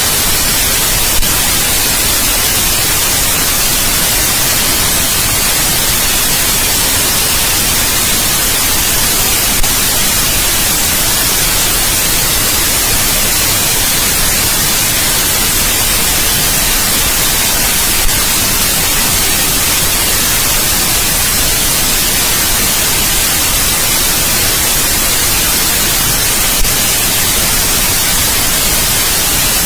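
Steady white noise, an even hiss, with a faint click about every eight and a half seconds.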